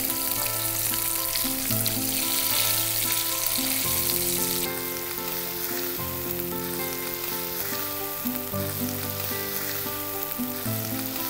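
Coated chicken pieces deep-frying in hot oil, a steady sizzle, while a slotted spatula turns them in the pan. The sizzle gets a little quieter about five seconds in. Soft background music with held chords plays underneath.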